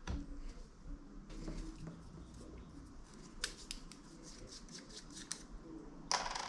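A run of light, sharp clicks and snips, followed near the end by a short, louder rustle, as from small hand work.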